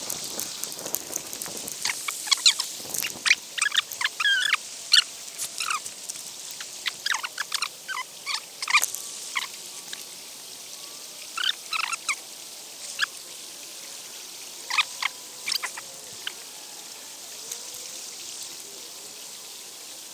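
Irregular sharp clicks and short squeaks, crowded together in the first half and sparser later, over the steady rush of flowing river water.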